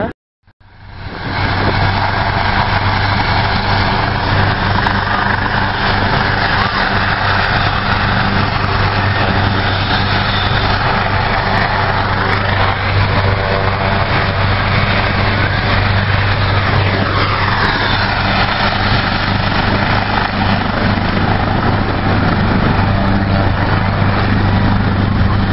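Rescue helicopter running on the ground and lifting off: a loud, steady drone of its turbine engines and rotor, with a whine that glides up and down around the middle.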